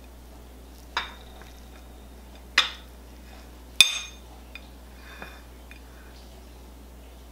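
Metal table knife and serving utensil clinking against ceramic plates: three sharp, ringing clinks about a second or so apart, the third the loudest, followed by a few light taps.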